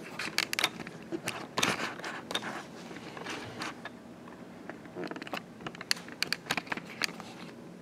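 Handling noise as the camera is picked up and moved: scattered clicks, taps and scraping close to the microphone.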